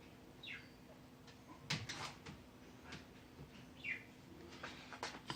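A small bird chirping twice, each a short call falling in pitch, over scattered clicks and knocks of parts and wires being handled, the loudest cluster about two seconds in. A faint steady electrical hum runs underneath.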